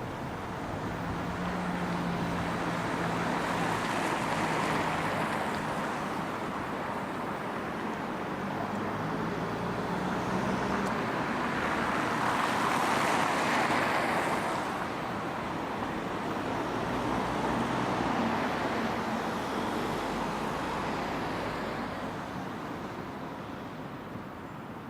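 City street traffic: vehicles pass one after another, each swelling and fading, with the loudest pass a little past the middle. A low engine hum sits under the first half.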